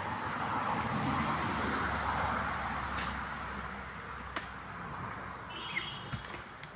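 Insects trilling steadily at a high pitch, with a broad rushing noise that swells over the first few seconds and then fades, and a couple of sharp clicks.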